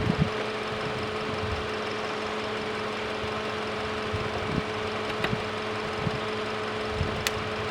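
A steady mechanical hum, like an idling vehicle, with a few faint clicks and a sharp tick about seven seconds in.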